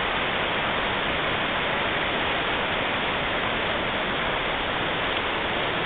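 Steady rush of whitewater from a waterfall and its river, an even hiss that does not change.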